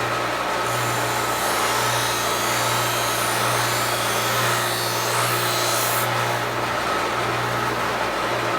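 Foley Belsaw 1055 Sharp-All sharpening machine running with a steady motor hum, as a knife blade held in a jig is ground against its wheel. A harsher high hiss of steel on the wheel comes in about a second in and fades out about six seconds in.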